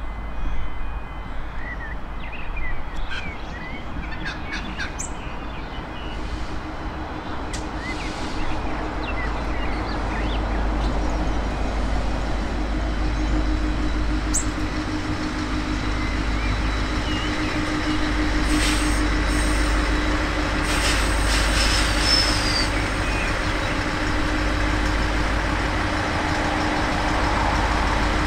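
V/Line Sprinter diesel multiple unit approaching and slowing into the station: a low rumble and a steady diesel engine drone that grow louder as it comes up the platform. A few brief high squeals sound about two-thirds of the way through.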